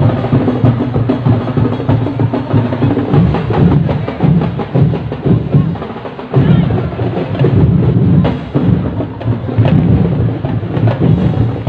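Festival street drumming: a massed drum and percussion ensemble of drums and wood-block-like strikes playing a loud, driving rhythm, with a brief dip about six seconds in.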